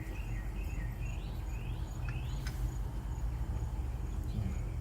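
Outdoor ambience: a steady low rumble with about four short rising chirps in quick succession around the middle, over a faint, evenly pulsing high tone.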